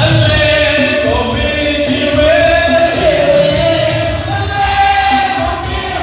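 Loud amplified pop song with singing, the voice holding long notes over a steady beat.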